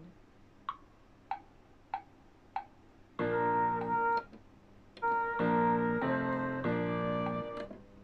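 Four evenly spaced clicks, about 0.6 s apart, counting in a short piano piece. Piano notes and chords follow, played back from a piano practice CD, and they stop shortly before the end.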